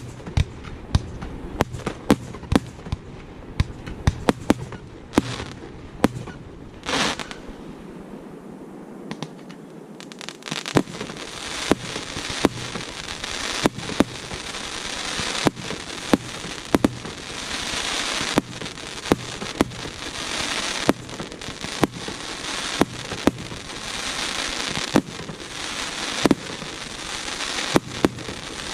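Fireworks display: repeated sharp bangs of bursting shells. From about a third of the way in, a dense crackling hiss swells and fades, with bangs still going off over it.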